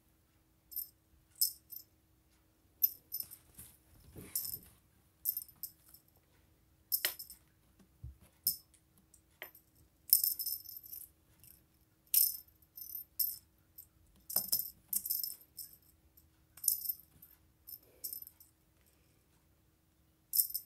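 A cat's rattle toy jingling in short, irregular bursts as the cat bats it about, with a few knocks in between.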